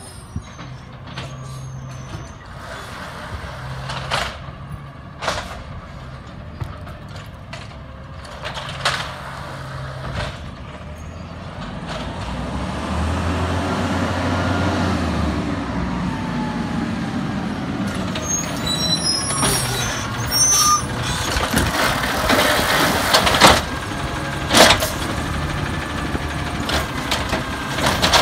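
Peterbilt 320 automated side-loader garbage truck running on compressed natural gas: engine running, getting louder as it draws near about halfway through, with short hisses of its air brakes. In the last several seconds its arm grabs, lifts and dumps a trash cart with repeated loud clanks and bangs.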